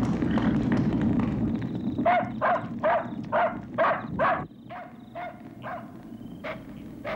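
A dog barking urgently in a quick run, about two or three barks a second, over the steady noise of a blazing fire; after about four and a half seconds the fire noise drops away and the barks go on fainter and more spaced out.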